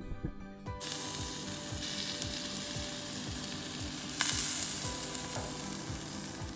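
A steady, hissing noise starts about a second in and grows louder for a moment about four seconds in, over background music with a steady beat.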